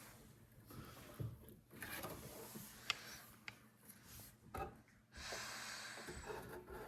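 Faint rubbing and rustling with a few light clicks, the sharpest about three seconds in: 3D printer parts and packaging being handled during assembly.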